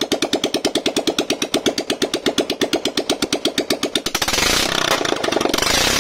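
Single-cylinder Royal Enfield Bullet 500 engine idling with an even thump, about eleven beats a second. About four seconds in, a louder rushing noise joins over the thumping.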